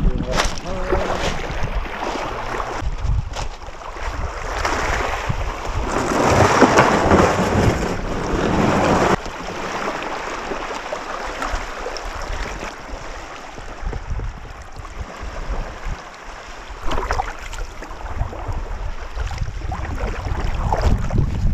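Wind buffeting the microphone, with small waves lapping on a cobble shore and around a sea kayak. A louder rushing stretch ends abruptly about nine seconds in.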